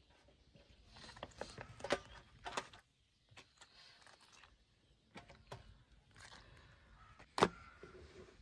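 Soft rustling and light taps as limp blanched cabbage leaves are laid into a baking tray, then a knife cutting through a cabbage leaf's rib against a wooden cutting board, with one sharp knock near the end.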